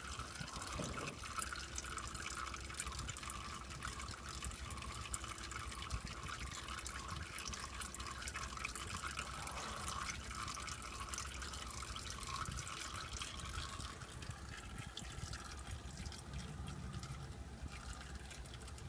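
Used engine oil draining in a steady trickle from the oil pan's drain-plug hole into a drain pan, with drips falling from the loosened oil filter.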